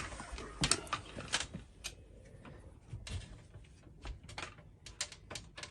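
Irregular sharp clicks and light knocks of hands working on plastic water hose and fittings inside a kitchen cupboard.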